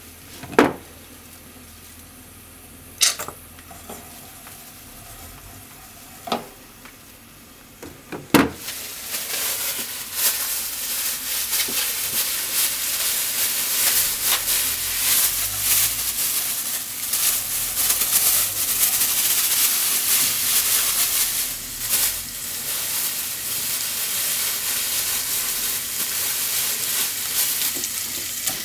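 A few sharp clicks in the first eight seconds, then cooking oil sizzling in a hot pot: a loud, crackling hiss that starts suddenly and holds steady.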